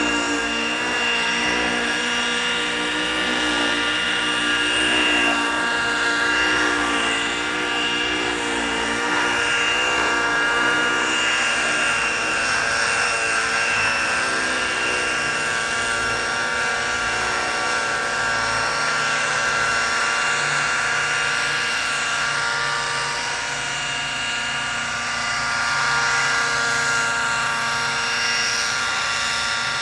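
Hirobo Freya 90 nitro model helicopter in flight: its engine and rotors run steadily, the pitch wavering a little during the first half as it manoeuvres.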